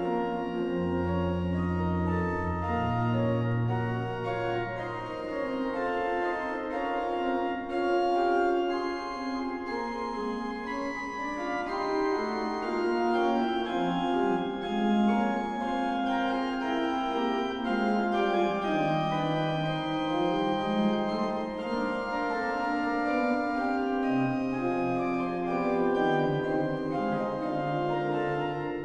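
The 1698 Botzen baroque pipe organ plays a manuals-only fugue in several interweaving voices at a steady level. Low bass notes enter about a second in and again near the end.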